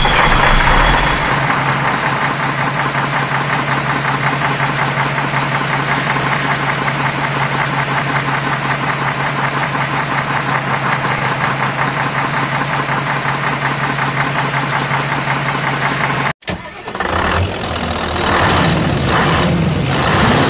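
A large vehicle's engine idling steadily with an even low hum and rapid regular pulsing. It cuts off suddenly about sixteen seconds in, and after a brief gap a different engine sound follows, with rising and falling pitch.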